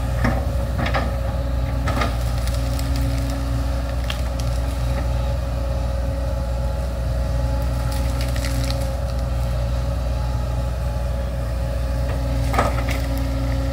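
Backhoe's diesel engine running steadily, with several sharp cracks and knocks scattered through as roots and wood are worked.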